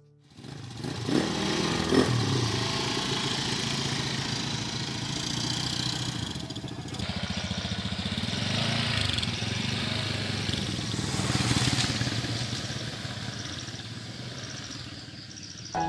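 Small motor scooter engines running as two scooters ride off, starting about a second in and fading near the end.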